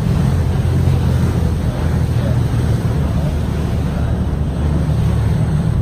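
Tour boat's engine running steadily underway, a low even drone, with wind buffeting the microphone and water rushing past the hull.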